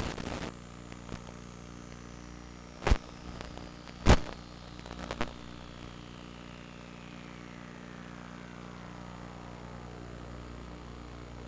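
FPV drone's small electric motors humming steadily, with a whine that falls slowly in pitch. Several sharp knocks break in: one at the start, then about three, four and five seconds in, the one near four seconds the loudest.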